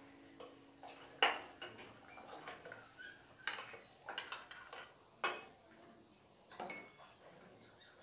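A spoon clinking and scraping against a cooking pot as custard paste is stirred into hot milk: a few sharper clinks a second or two apart, with lighter taps between.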